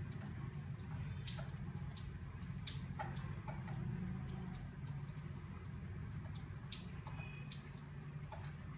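Crochet hook working yarn: faint, irregular little clicks and rustles over a steady low hum.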